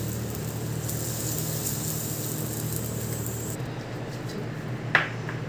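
Steady hiss with a low hum from the pan of potato-cauliflower curry simmering on the stove, which cuts off abruptly about three and a half seconds in. Near the end, a single light clink of a steel spoon on a plate.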